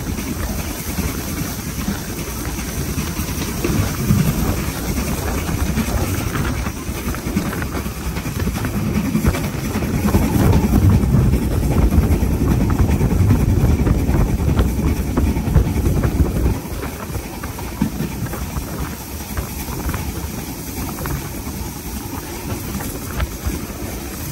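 Steam train hauled by an LMS Black 5 locomotive running along the line: a steady rumble of the train on the rails, swelling louder for several seconds in the middle and dropping back near the end.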